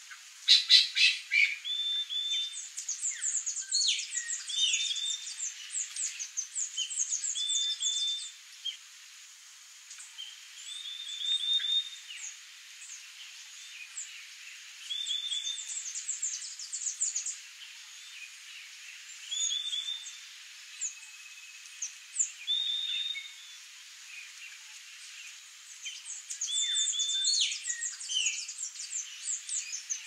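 Wild songbirds calling: a short slurred note repeated every few seconds, with bursts of rapid, thin, high-pitched chips, over a faint steady high tone. About a second in comes a quick run of sharp clicking notes, the loudest sound.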